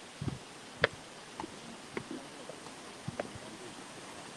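Steady rush of the Kifune River, with a handful of short, irregular knocks and clicks close by.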